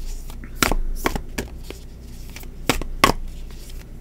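A tarot deck being shuffled by hand: a series of irregular sharp slaps and taps of card stock as the deck is split and restacked, the loudest about three seconds in.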